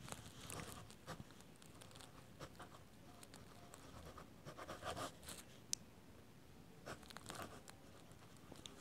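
Faint scratching of a pen writing on paper, in short strokes with brief pauses between, and a single sharp tick about two-thirds through.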